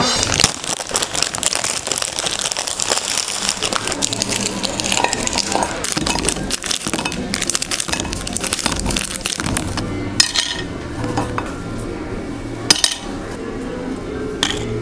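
Oreo cookies clattering and clinking against glass food containers as they are handled and twisted apart. A dense clatter in the first half thins to a few separate sharp clicks.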